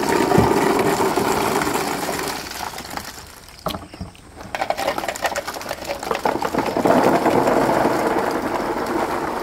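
Many hollow plastic ball-pit balls pour out of a plastic tub and bounce on a tarp-covered floor, a dense rattling clatter. It drops to a short lull about three and a half seconds in, then a second pour starts.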